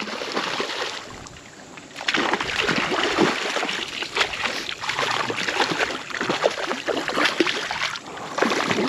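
Hooked trout thrashing and splashing at the surface of a creek while it is reeled toward the net. The splashes are irregular and come in a dense run from about two seconds in.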